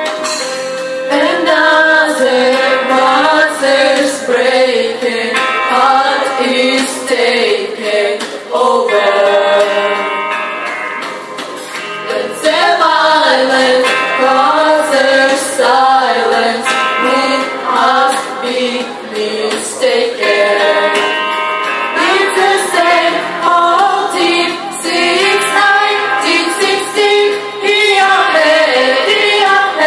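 A group of young women singing a song together into microphones, amplified through the hall's speakers.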